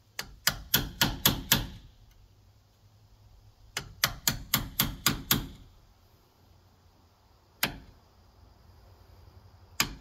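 Hammer striking an Irwin wood chisel, chopping a mortise for a deadbolt strike plate in a wooden door jamb. The taps come in quick runs of about four a second: a run of about six, a pause, a run of about seven, a single tap, then another run starting near the end.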